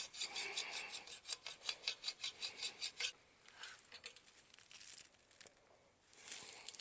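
Rapid light ticking on the brass trombone slide tube as it is worked, about five or six ticks a second, stopping about three seconds in. It is followed by faint scraping and rubbing.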